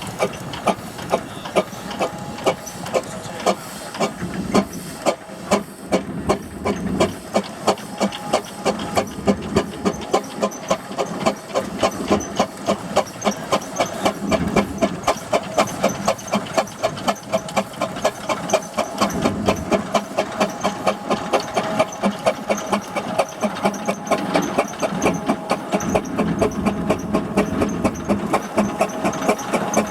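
Steam engine running under load: a steady, even chuff of exhaust beats, about three a second, over hissing steam.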